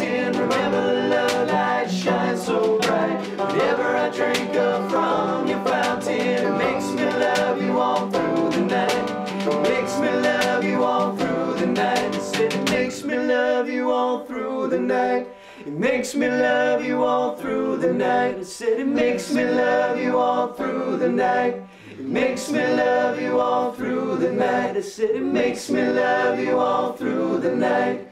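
Acoustic folk-bluegrass band playing: picked banjo and acoustic guitar with a hand drum, and voices singing. About halfway through the accompaniment thins and the lowest notes drop out.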